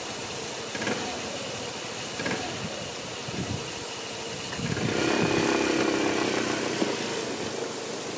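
Small scooter engine idling, then the throttle opens about five seconds in and the scooter pulls away, its engine note rising and then fading as it rides off.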